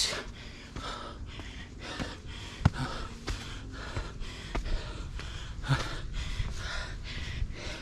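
A hiker's heavy breathing close to the microphone, quick regular breaths from the effort of climbing a steep mountain trail, with a couple of sharp clicks.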